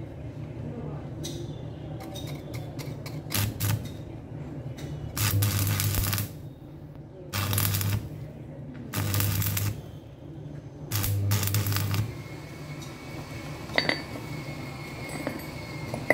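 Stick (arc) welder crackling and hissing in about five short bursts, each a second or less, with the welding transformer's low hum under them: short welds being laid onto a broken bolt stub so it can be turned out. A sharp metal click follows near the end.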